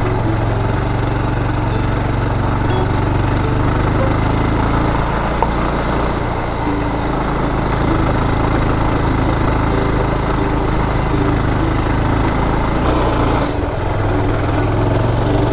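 Motorcycle engine running at a steady speed while being ridden over a gravel road, with road noise underneath.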